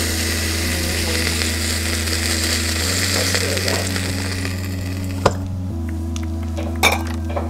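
Hot coconut oil sizzling under the lid of a stainless steel pot full of freshly popped popcorn, the hiss fading out about five seconds in. Then comes a sharp metallic knock and, a moment later, a clatter as the popcorn is tipped out into a bowl, over low sustained background music.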